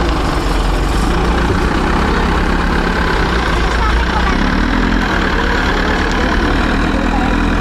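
Diesel engine of a JCB SiteMaster backhoe loader running steadily near idle. From about halfway through, its note lifts slightly as it takes a little more load.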